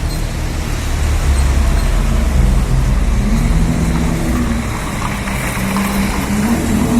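City road traffic: vehicle engines running with tyre noise and a heavy low rumble, and an engine drone that rises and falls in the second half.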